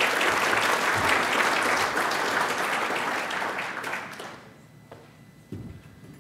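Audience applauding, a dense patter of many hands clapping that dies away about four seconds in. A soft knock follows near the end.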